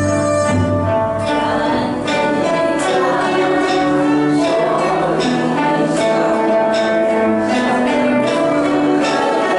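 Chinese traditional instrumental ensemble playing a tune: bamboo flutes (dizi) and erhu carry the melody over a cello, with a regular beat of sharp notes under a second apart.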